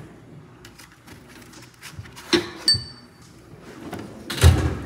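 Metal hand tools and sockets being handled in a toolbox drawer: quiet rattling with two sharp clinks a little over two seconds in, the second ringing briefly, and a heavier thud near the end.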